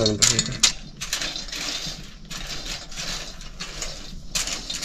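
Roasting Katush nuts rattling and clinking against an iron wok as they are stirred with a stick. The clatter is densest in the first second and then thins to softer, scattered clicks.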